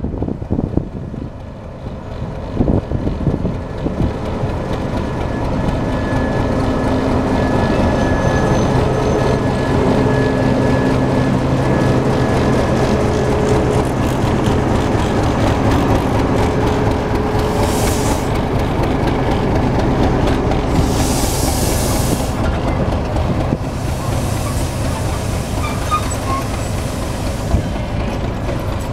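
Queensland Railways 1600 class English Electric diesel-electric locomotive drawing its carriages in to the platform and running close by, its engine droning steadily. Several short loud hisses come in the second half.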